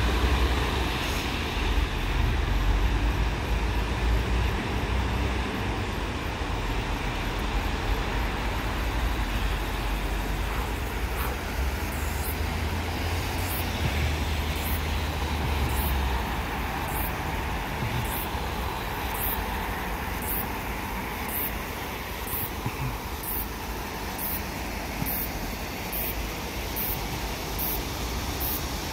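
Steady road traffic noise with a deep rumble that is heavier for the first half. From about a third of the way in, a high, short chirp repeats about once a second.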